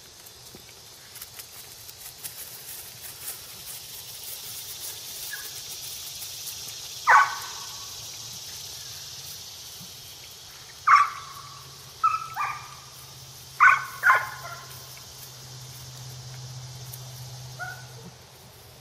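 A dog barking off and on: about six short, sharp barks, one about seven seconds in and the rest, some in quick pairs, a few seconds later.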